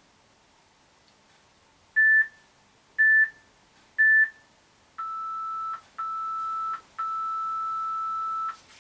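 Electronic interval-timer beeps. About two seconds in come three short high beeps a second apart, then two longer, lower beeps and one final long beep, signalling the end of the timed interval.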